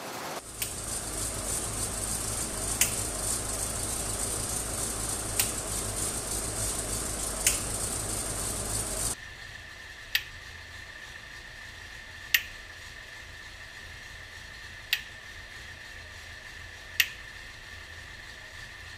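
Powerglide transmission running on a dyno with a steady hiss and low hum that drops away about nine seconds in, leaving a faint steady whine. Sharp single clicks come every two to three seconds, seven in all: the trans brake solenoid clicking on and off as it applies and releases the reverse clutches.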